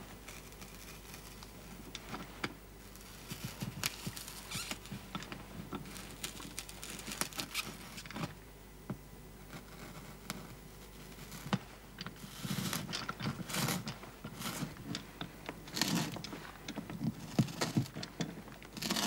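A small hand tool scraping, creaking and clicking as it cuts through a wooden door panel, in irregular strokes that grow busier and louder in the second half.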